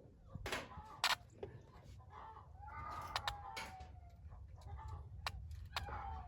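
A young dog crying in a pen, with a long whine that falls in pitch about three seconds in, mixed with a few sharp knocks.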